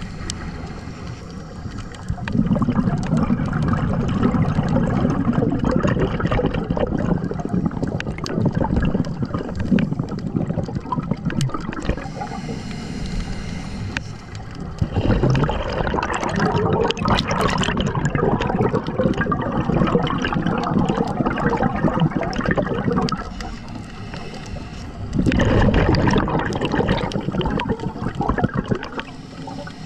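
Scuba regulator exhaust bubbles gurgling underwater in several long bursts, with quieter breaks between them.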